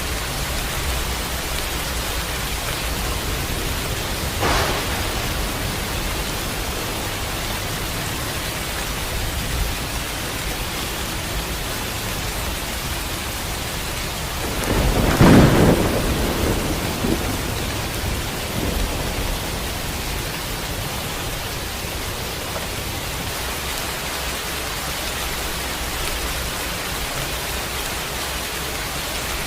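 Steady rain with a short crack of thunder about four seconds in and a louder rumble of thunder about halfway through.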